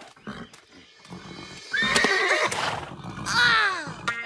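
Pony neighing twice: a loud whinny about two seconds in, then a second one that falls in pitch.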